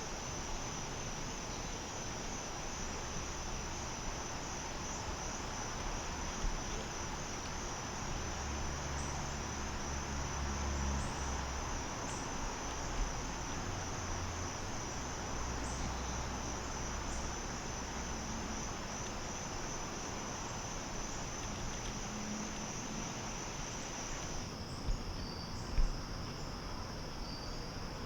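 Insect chorus, a steady high, finely pulsing trill that runs on throughout. A wider background hiss under it cuts off suddenly about three-quarters of the way in, and two short soft knocks follow.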